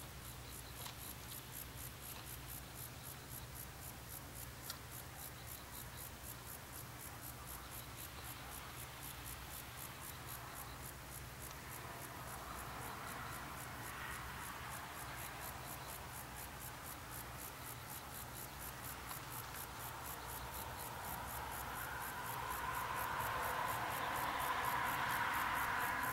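Insects chirping in a fast, steady, high-pitched pulse, about three a second. From about halfway through, the working steam locomotive C58 239 approaching under a heavy smoke exhaust grows louder, becoming the loudest sound near the end.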